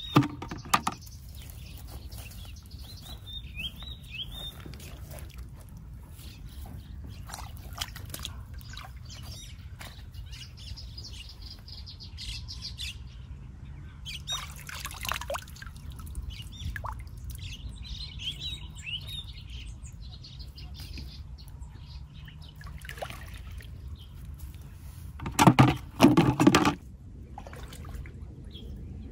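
Wild birds chirping off and on, over small splashes and sloshing of water as hands feel through the shallow muddy pond edge for mussels. Two loud bumps come near the end.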